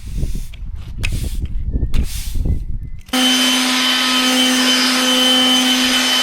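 Low rumbling, scuffing noise, then about three seconds in a small electric-motor machine starts abruptly and runs steadily with a high whine over an airy rush, its pitch falling away as it winds down at the very end.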